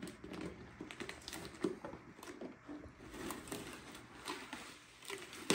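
Painter's tape and duct tape being peeled off a motorcycle fairing as one taped template: irregular crackling and sticky tearing as the tape comes away, with a sharper snap near the end.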